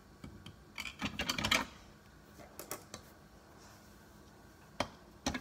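Light clicks and rustling from hands handling things close by, in two short clusters: about a second in, and again near the end.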